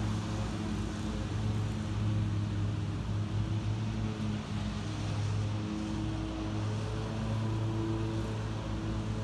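A motor running steadily: a low, even hum over a broad hiss.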